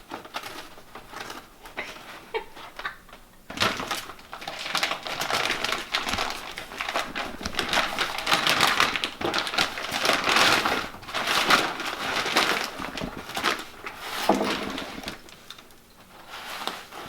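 Plastic packaging crinkling and rustling with small clicks and rattles as bags of bolts are handled, busiest from about four seconds in until near the end.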